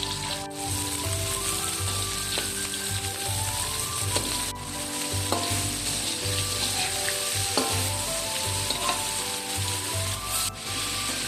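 Fish pieces sizzling as they fry in oil in a pan during a stir-fry, with scattered sharp crackles and clicks from the pan. Background music with a steady low beat plays under it.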